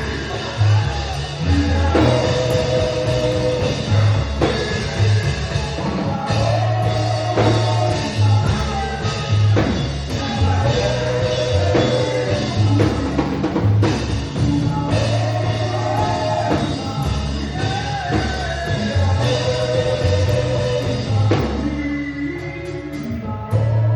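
Live gospel praise band playing, with a lead voice singing phrases over a bass line and drum kit. The band thins out near the end.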